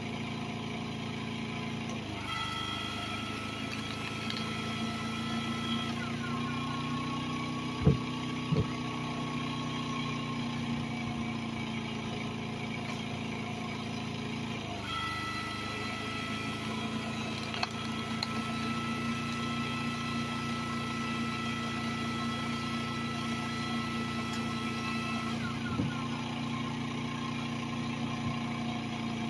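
A 9500-watt inverter generator's engine running steadily on wood gas, under the load of an electric log splitter. The splitter's motor adds a steady whine for two splitting strokes, one a few seconds in and a longer one from about halfway to near the end, each ending in a short falling whine; two knocks of wood about eight seconds in.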